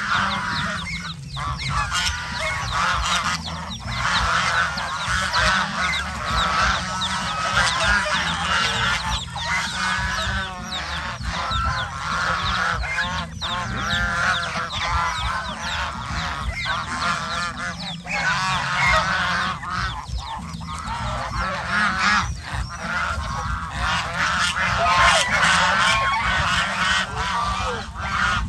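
A flock of domestic geese honking without pause, many calls overlapping, over a steady low rumble.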